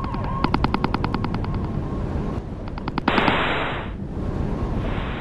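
Rapid machine-gun-like rattle, about ten shots a second, over a wavering tone, breaking off about two seconds in. A last short rattle is followed near three seconds by a loud burst of hiss, then a fainter hiss.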